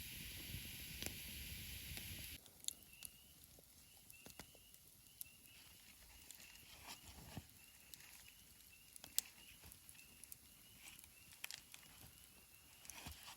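A steady hiss cuts off about two seconds in. After it, faint short, rising high calls repeat about twice a second, with scattered light clicks.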